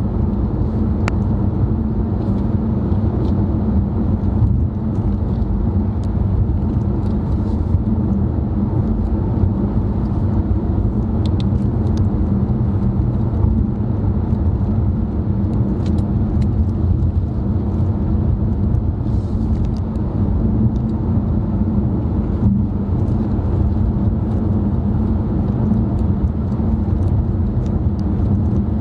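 Steady road and engine noise of a car driving, heard from inside the cabin: an even low rumble with no change in speed.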